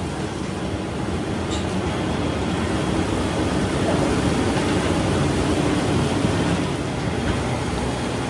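Rotational moulding machine running with a steady mechanical rumble as it turns a hot steel water-tank mould, while water from a hose sprays onto the mould to cool it. A little louder in the middle.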